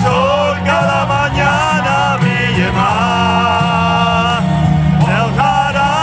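A band playing music, with a lead melody line that wavers and glides in pitch over a steady low accompaniment.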